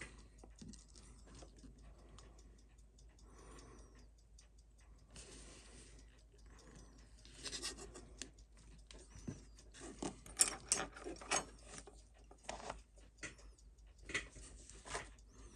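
Small, quiet clicks, taps and brief scrapes of watchmaker's tools handling a watch's parts on the bench, coming in irregular clusters that grow busier in the second half.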